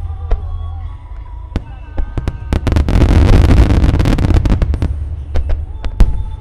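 Large 1-shaku (No. 10, about 30 cm) aerial firework shells bursting in rapid succession. Sharp bangs come a second or so apart, then about two seconds of dense, continuous noise as many bursts overlap, and two more sharp bangs near the end.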